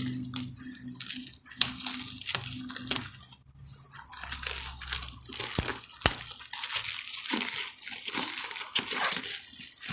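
Thick plastic bubble wrap around a parcel being torn and crinkled open by hand: a dense run of crackles and small snaps, over a low steady hum for the first three seconds.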